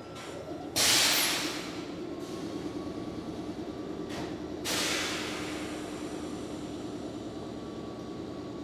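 Nankai electric train running at a level crossing, with two sudden loud hisses, about a second in and again near five seconds, each fading away.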